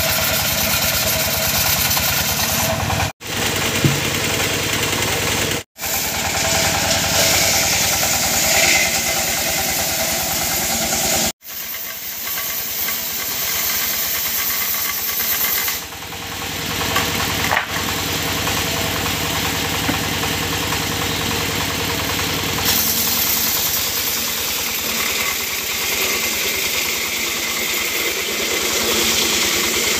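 Engine-driven circular sawmill running steadily, its spinning blade adding a hiss over the engine. The sound breaks off abruptly at several edit cuts, about 3, 6 and 11 seconds in, and carries on the same way between them.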